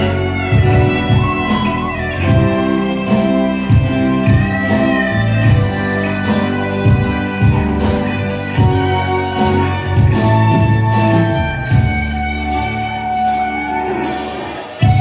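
Live band playing an instrumental passage: electric guitar over keyboard, bass guitar and drums, without vocals.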